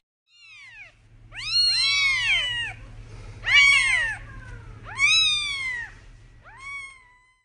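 Newborn kittens mewing: about five high-pitched cries, each rising then falling in pitch, the middle three the loudest.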